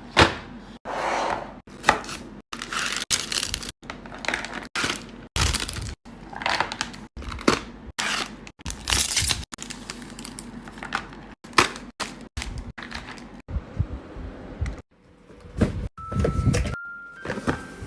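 Snack packaging being opened and handled up close: cardboard boxes and foil packets torn and crinkled, and Pocky biscuit sticks tipped into ceramic dishes. It comes as many short rustles, cracks and knocks, broken off by abrupt cuts.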